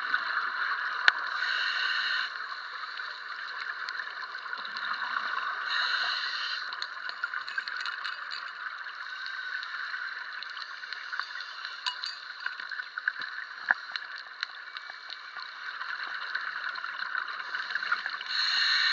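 Underwater reef ambience heard through a camera housing: a steady hiss with scattered sharp clicks, and a few louder bubbling rushes about a second long from a scuba diver's exhaled breath.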